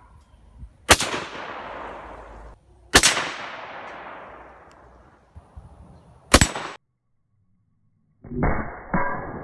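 Rifle shots from a Savage .303: two shots about two seconds apart, each followed by a long echo dying away, then a third about three seconds later that cuts off short. Near the end comes a duller, muffled boom, with a second one about half a second after it.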